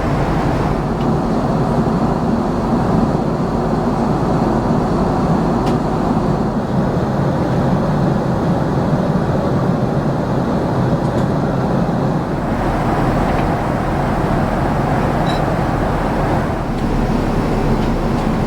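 Steady cabin noise inside a Boeing 767-400ER airliner: the even rush of engines and airflow, heavy in the low end and unchanging.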